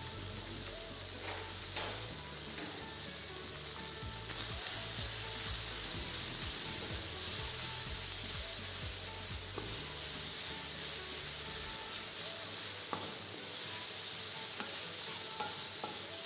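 Chicken strips with chopped garlic and ginger sizzling in a hot frying pan as they are stir-fried with a spatula, with a few clicks and scrapes of the spatula against the pan.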